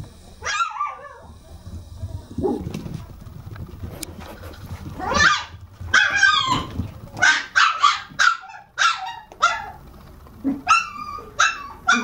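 Toy poodle puppies barking in short, high yips during play: one yip about half a second in, then from about five seconds on a quick run of a dozen or so yips, some falling in pitch.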